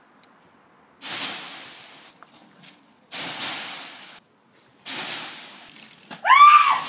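Gravel and rubble crunching under repeated jumps, in four sudden bursts about two seconds apart, each fading over about a second. Near the end comes a short, high squeal that rises and falls, voice-like.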